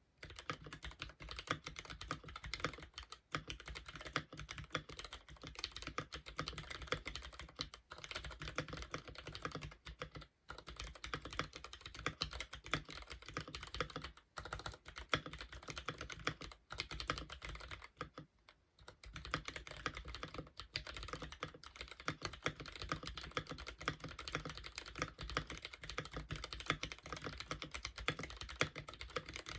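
Fast typing on a Womier K66 mechanical keyboard with Gateron Milky Black linear switches: a dense, continuous run of keystrokes broken by a few brief pauses.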